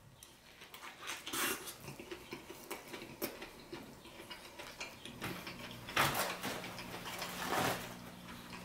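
Chewing and wet mouth sounds of a man eating a burger, with scattered small clicks. A low steady hum comes in about five seconds in.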